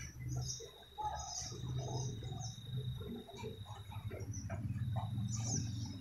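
Swiftlets calling in short, high chirps that come every second or so, over a low steady hum.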